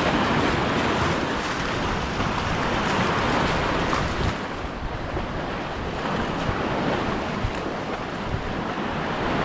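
Sea surf washing in, a steady rushing that swells and eases, with wind buffeting the microphone.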